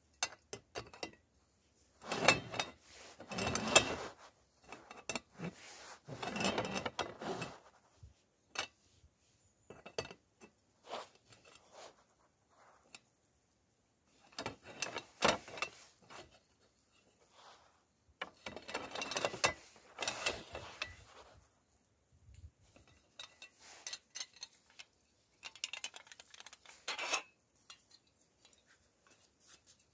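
A folding gas canister stand being handled: its legs are swung open and shut and fitted to a canister, giving clicking, rattling and scraping in several separate bursts, the longest about 2 s in and again around 19 s.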